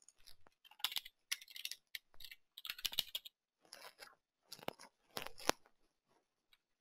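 Faint, irregular keystrokes on a computer keyboard: scattered short clicks, a few in quick clusters, as a word is typed.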